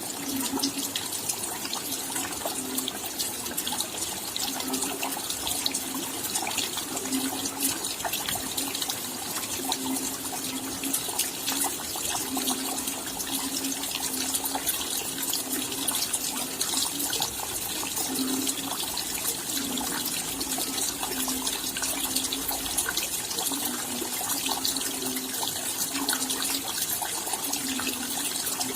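Steady rain, a dense patter of many small drops, with a low watery note that swells and fades every second or two.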